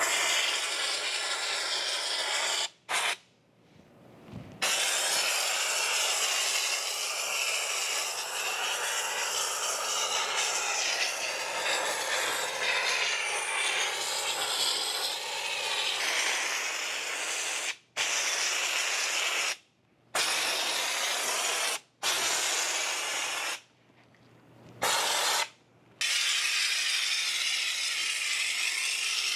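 Compressed-air bedliner spray gun hissing as it lays on a texture coat, in long bursts broken by several short stops.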